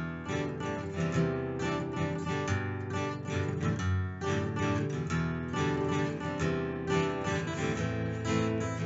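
Background music: an acoustic guitar strumming chords at a steady, even level.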